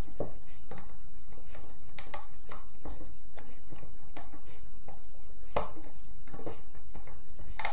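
Light, scattered clicks and taps of a loom hook and rubber loom bands on the plastic pins of a band loom as the bands are looped up, over a steady faint hum and hiss.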